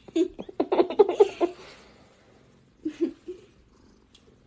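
Giggling in a quick run of short bursts for about a second and a half, then a shorter burst of giggles about three seconds in.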